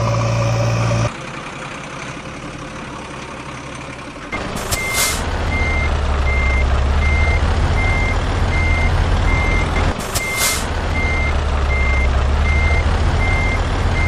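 Heavy truck's reversing alarm beeping steadily over a low diesel engine rumble, with two short air-brake hisses, laid on as a sound effect for a toy dump truck. A loud low hum cuts off about a second in, before the beeping starts.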